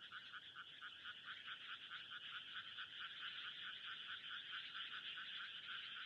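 Frogs calling in a steady chorus, a rapid pulsing trill of about five beats a second.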